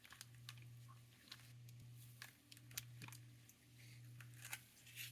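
Near silence: faint scattered clicks of small watchmaker's tools working on the watch hands, over a low steady hum.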